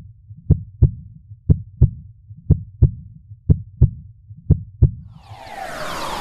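Heartbeat sound effect: five slow lub-dub double thumps, about one a second. From about five seconds in, a swelling whoosh with sweeping tones builds in.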